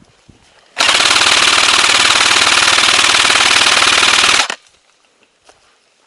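Airsoft electric rifle firing one long full-auto burst of about three and a half seconds, a rapid even chatter of shots very close by, starting about a second in and cutting off sharply.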